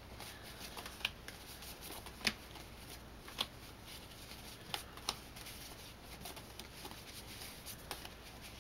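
Handmade kraft-cardstock greeting cards being laid down one by one onto a cutting mat and onto each other: quiet paper rustling and sliding, with a sharp little tap about every second or so as each card lands.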